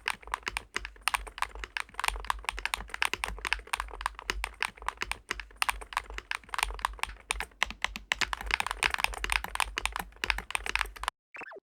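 Fast, continuous typing on a DAREU COOL60 magnetic-switch keyboard, a dense run of key clacks that stops abruptly near the end.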